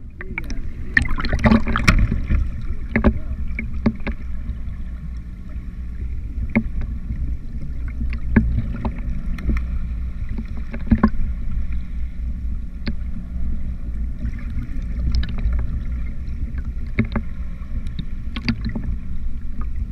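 Muffled underwater sound picked up through a GoPro's waterproof housing: a steady low rumble with scattered sharp clicks and knocks.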